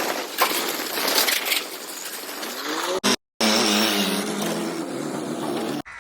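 A motor vehicle engine revving, its pitch rising about three seconds in, then running on with a wavering pitch. A noisy, clattering stretch comes before it, and the sound breaks off abruptly twice.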